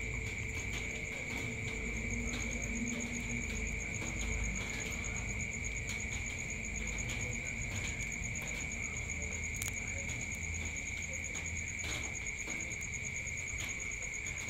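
A night chorus of crickets chirring: a steady high trill at one pitch, with a higher, finely pulsing buzz above it. Faint scattered ticks and a low rumble sit beneath the chorus.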